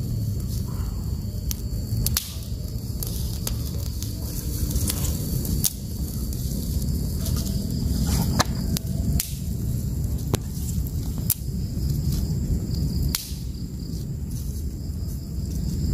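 Small fire of dry pine needles and twigs burning, with scattered sharp crackles and pops about once a second over a steady low rumble.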